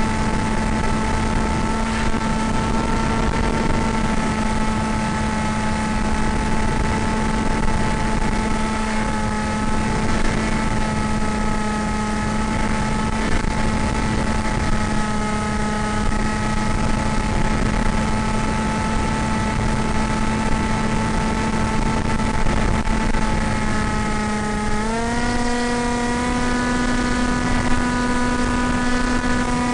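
AXN Floater RC plane's electric motor and propeller droning at a steady pitch over rushing wind noise, heard from on board. About 25 seconds in the pitch steps up as the motor speeds up.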